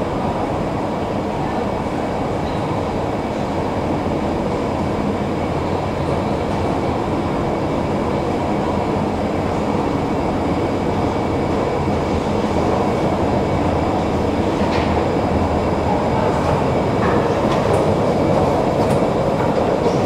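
Subway-station escalator running steadily, a continuous mechanical rumble from its moving steps and drive, with a few faint ticks in the second half. It grows a little louder near the end as the top landing comes near.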